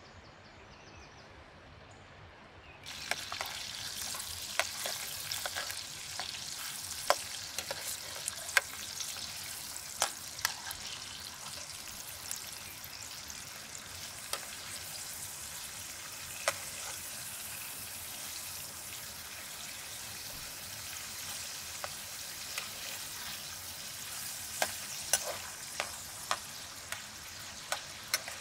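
Persian pan kebab patties of minced meat sizzling in hot oil in a metal frying pan over embers, with sharp clicks and pops scattered through the steady hiss. The sizzle starts suddenly about three seconds in.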